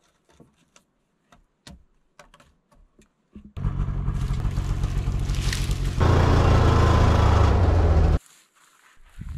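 Snowmobile engine running, coming in suddenly after a few seconds of faint clicks, revving up and getting louder about two-thirds of the way through, then cutting off abruptly.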